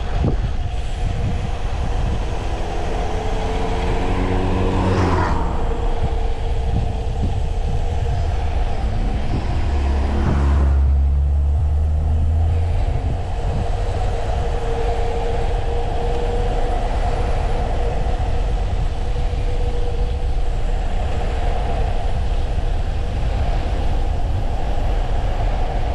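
Steady rush of wind over the microphone and tyre noise from a Brompton folding bike speeding downhill, with a deeper rumble swelling about ten to twelve seconds in.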